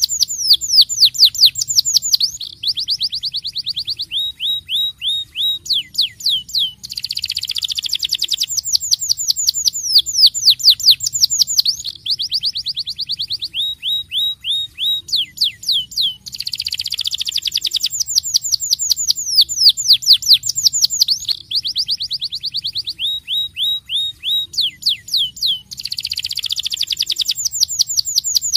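Starblue domestic canary singing a long rolling song: fast trills of rapid, high, downward-sweeping notes, phrase after phrase. There are short breaks, and the same song sequence comes round again about every nine to ten seconds.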